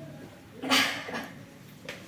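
A person's sudden, loud explosive exhale about a second in, with a weaker one right after, typical of a sneeze or cough reacting to the pungent fumes of dried red chillies being cooked.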